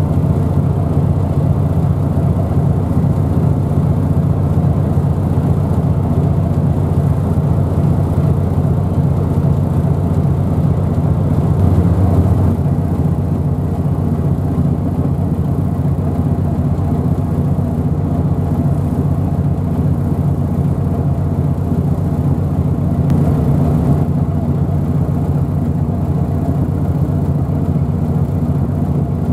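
Steady low engine drone, a deep hum that holds level without a break.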